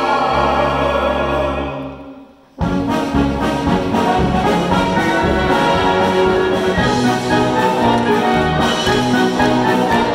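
A wind band plays. A held chord dies away, there is a short break, and about two and a half seconds in the band comes back in with a brisk rhythmic passage in which the brass stands out.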